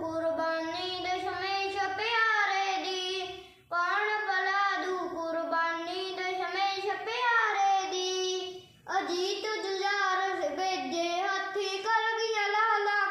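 A young boy singing a devotional song solo and unaccompanied, in three long phrases with held, wavering notes and two short breaks between them.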